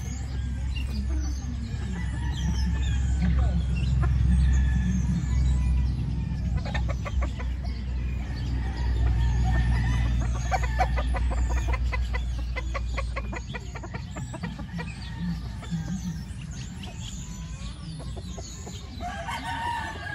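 Sweater 5K gamefowl rooster and Yellow Leg Hatch pullets clucking and calling, with crowing. A steady low rumble runs under the first two-thirds, and a quick run of rapid, evenly spaced clucks comes past the middle.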